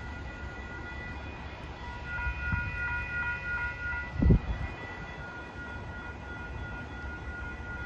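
Distant train rumbling under steady high tones, with a ringing that pulses about three times a second for a second or two, and a single thump about four seconds in.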